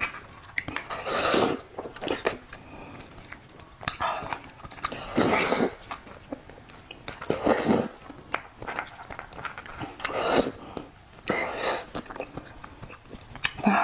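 Close-up eating of raw crab: about eight short, noisy sucks and slurps at the shell pieces, each under a second, with chewing and small clicks in between.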